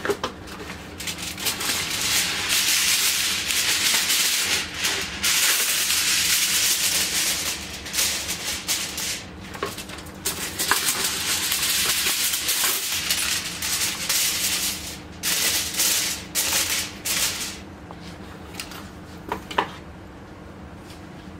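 Aluminium foil being pulled from its box, crinkled and pressed down over a cooking pot to seal it: a dense, rustling crackle that dies down near the end.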